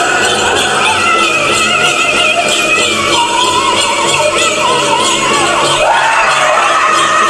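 Powwow drum group singing a chicken dance song: high, wavering voices over a steady drumbeat, with the jingling of the dancers' bells.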